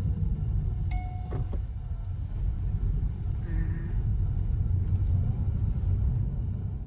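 Car driving, heard from inside the cabin: a steady low road and engine rumble, with a short beep about a second in.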